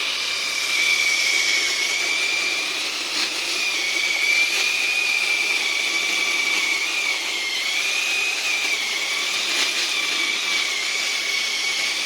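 Chainsaw running continuously at high speed, its high whine wavering slightly in pitch.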